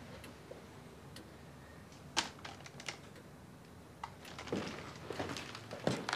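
Scattered clicks and light clatter of hands rummaging through a wooden hi-fi cabinet, handling stereo equipment and CDs while searching for a CD. The clicks are sparse at first and come thicker in the last two seconds.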